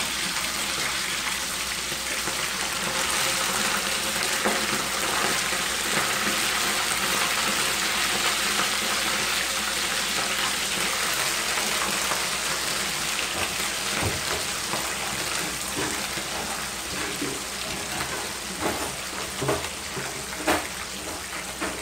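Salted fish pieces frying in hot oil in a frying pan: a steady sizzle, with a few sharp clicks near the end.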